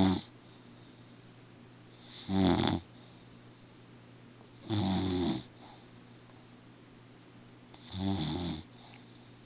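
Slow, regular snoring, one snore about every three seconds.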